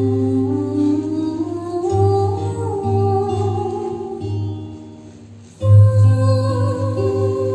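Music with long held melody notes that slide between pitches over a steady low drone. It fades down near the middle, then starts again loudly about five and a half seconds in.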